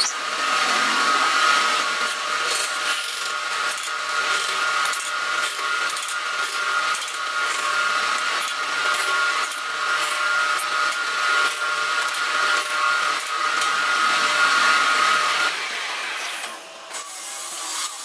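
Wood lathe running with a steady whine while a hand-held tool cuts into the end of the spinning turned wood, giving a loud crackling hiss. The whine and cutting noise drop away about fifteen seconds in.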